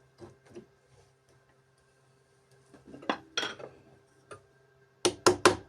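Light metallic clinks and taps of a steel workpiece and parallels being set up in a milling vise, with a pair of ringing clinks about three seconds in. Four quick sharp clicks follow near the end.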